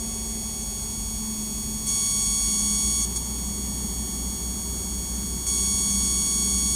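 Steady electrical whine and hum from the light aircraft's intercom audio feed, several high thin tones over a low hum, with no engine heard directly. It steps louder about two seconds in, drops back a second later and steps up again near the end.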